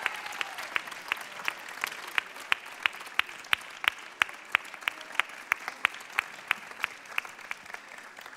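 Audience applauding, with loud, even claps about three a second standing out above the general clapping.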